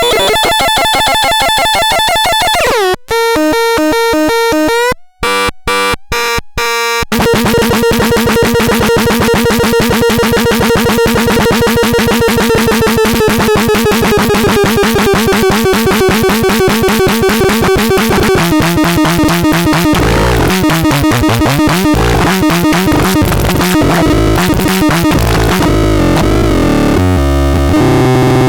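Harsh electronic synth noise from the Torturon C 20: stacked pitched tones that step and glide, cut by several abrupt silences in the first few seconds, then a dense, fast-pulsing buzz over a held tone that drops lower in pitch past the middle.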